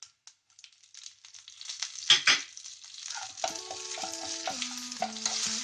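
Curry leaves hitting a hot tempering of mustard seeds, fenugreek, dried red chillies and shallots frying in oil: the oil starts to crackle about a second in, gives two sharp pops just after two seconds in, then settles into a steady sizzle.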